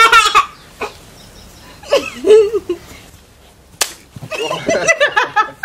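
A water balloon bursting with a single sharp smack on a man's head about four seconds in, amid bursts of laughter and excited voices before and after.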